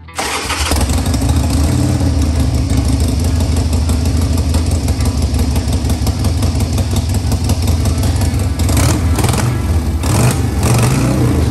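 Harley-Davidson Sportster 1200's air-cooled V-twin running through long open drag pipes inside a garage, a loud, steady idle with a few throttle blips near the end.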